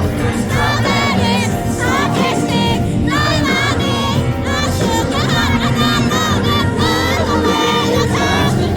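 A pop song played live over a concert PA, with a crowd of fans singing along and shrieking over the beat.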